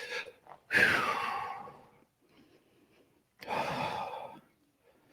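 A person breathing out heavily twice, two long breathy sighs about two and a half seconds apart while holding a shoulder stretch.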